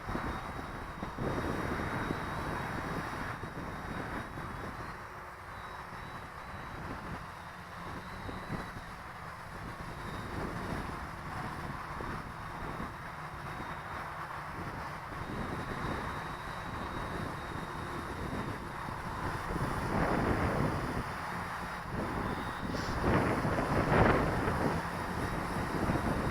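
Gusty wind buffeting the microphone, rising in strong gusts over the last several seconds. A faint steady high whine runs underneath, which fits a hovering quadcopter's motors and propellers.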